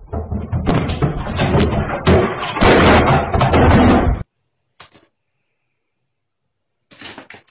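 Loud, distorted banging and clattering, many knocks close together, heard through a security camera's microphone; it cuts off abruptly about four seconds in, and a single click follows.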